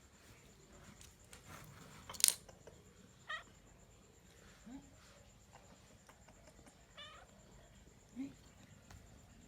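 A cat giving two short meows, a few seconds apart, with a sharp knock about two seconds in.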